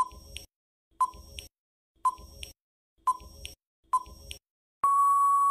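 Quiz countdown timer sound effect: five short beeps, one a second, then a longer steady beep of about a second near the end as time runs out.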